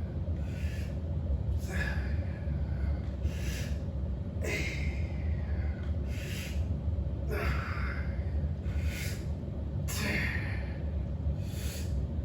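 A man breathing hard through exercise reps, with sharp exhales or gasps about every second and a half, some of them with a short strained grunt. A steady low hum runs underneath.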